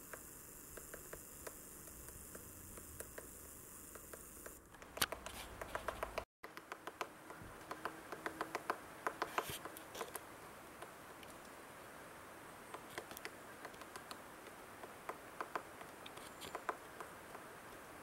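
Woodpecker pecking and chiselling into wood: irregular sharp taps, several a second in short clusters, with pauses between.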